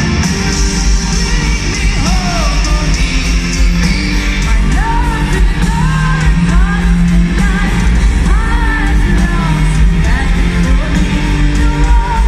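Symphonic metal band playing live in an arena, with loud guitars, bass and drums under a high female lead vocal that holds and slides between long notes.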